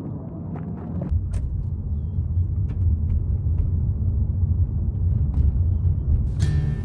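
A low steady rumble sets in about a second in, with a few light clicks and taps over it; acoustic guitar music starts near the end.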